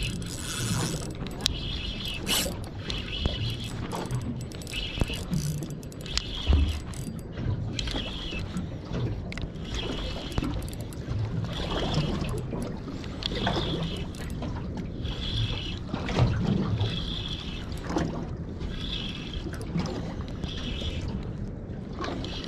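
Spinning reel being cranked to wind in a hooked fish under load, its gears whirring in short strokes about once a second.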